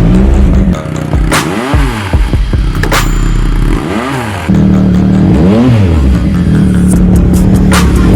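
Triumph Street Triple RS three-cylinder engine with a modified exhaust, blipped from idle about five times in quick, short revs that rise and fall back, with a few sharp cracks between blips.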